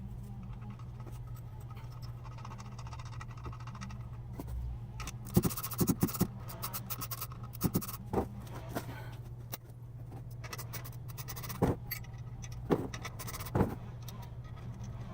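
Scattered sharp metallic clicks and taps of tools and small valve-train parts being handled while valve springs are taken off a cylinder head, with a cluster of them about five seconds in. A steady low hum runs underneath.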